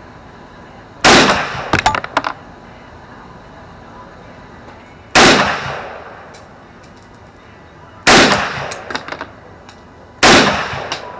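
Four slow, aimed shots from an SKS rifle (Chinese Type 59/66) in 7.62×39mm, a few seconds apart: one about a second in, then near the middle, and two close together near the end. Each report is a sharp crack with a short ringing tail.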